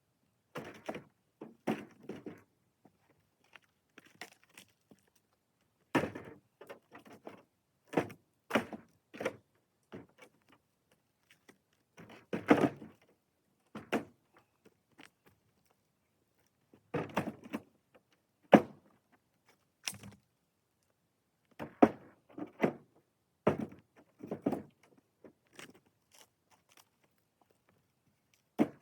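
Pieces of firewood knocking and thunking against each other in irregular clusters of two or three every few seconds.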